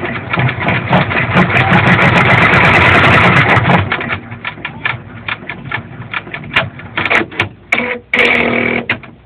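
Brother PR600 multi-needle embroidery machine running, a loud, dense, rapid mechanical sound for about four seconds, then breaking up into scattered clicks and knocks.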